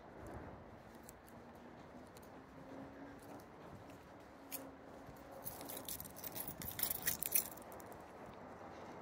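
Quiet walking on a concrete sidewalk: faint footsteps and small clicks, with a brief burst of light jingling between about five and a half and seven and a half seconds in.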